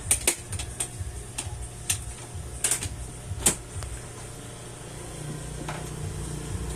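A string of sharp, irregular clicks and taps, about a dozen in the first three seconds, as of small mechanical parts. A steady low hum comes in about five seconds in.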